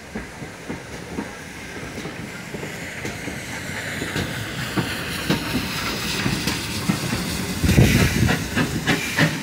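GWR 14xx-class 0-4-2T steam tank engine 1450 arriving with one coach: steam hissing and wheels clicking on the rails, getting steadily louder as it comes close. Near the end a loud rumble and a quick run of sharp clicks as the train passes by.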